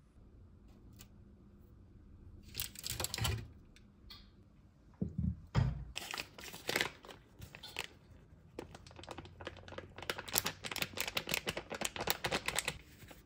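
Paper bag crinkling as it is handled, with a couple of dull knocks about five seconds in. In the second half it crackles in quick, rapid bursts as cocoa powder is shaken out of it into a glass dish.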